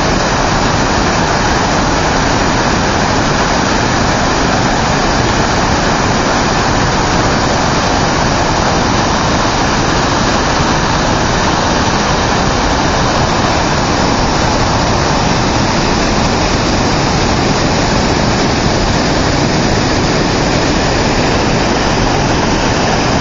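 Loud, steady rush of floodwater pouring and churning without a break.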